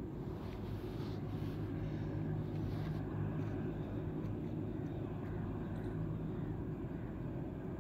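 A steady low mechanical drone, like an engine running at a distance, unbroken throughout; no francolin call stands out above it.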